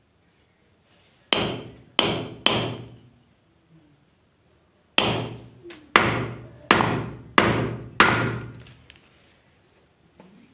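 Hammer blows on the metal parts of a Tullu water pump as its seal and shaft assembly are tapped into place: three strikes, then after a pause five more at a steady pace, each ringing briefly.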